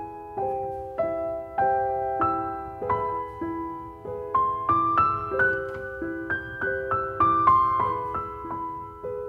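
Gentle piano music, with notes struck about twice a second and left to fade. The melody climbs in the middle and settles back down near the end.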